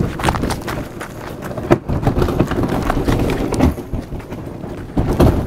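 Loaded Old Town fishing kayak being hauled over gravel: gravel crunching and the hull and mounted gear rattling with irregular knocks.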